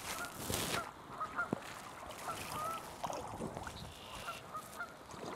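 A kayak paddle blade sweeping through the water with a splash about half a second in, while geese honk repeatedly in the background.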